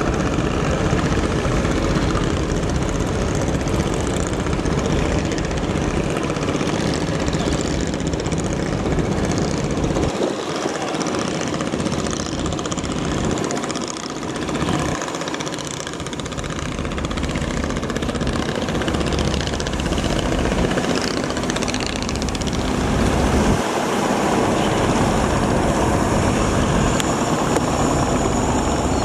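River passenger launch MV Karnaphuli-3 under way at speed: a steady engine drone mixed with the rush of water from its bow wave. The low rumble drops away for a few seconds midway, then returns.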